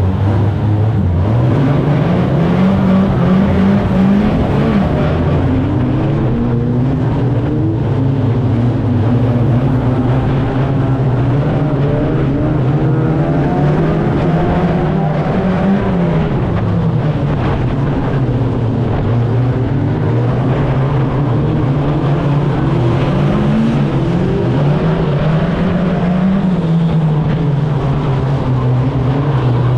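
A 2-litre banger racing car's engine heard from inside its stripped-out cabin, running steadily at low revs. Its pitch rises and falls several times as the throttle is eased on and off.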